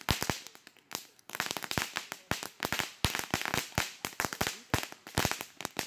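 Cheap consumer fireworks burning in a bonfire, going off in rapid, irregular cracks and pops, several a second, over a steady hiss of spraying sparks, with a brief lull about a second in.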